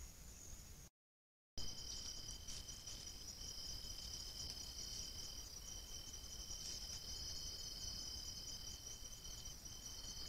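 Night insect chorus of crickets: a steady high trill with a second, lower continuous tone beneath it. A short dropout to total silence about a second in.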